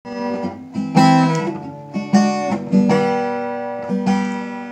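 Acoustic guitar strumming a slow introduction: a chord is struck about once a second and left to ring between strokes.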